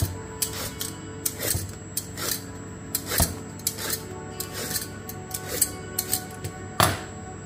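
Vegetable peeler scraping the skin off a raw turnip in quick, short strokes, about two or three a second.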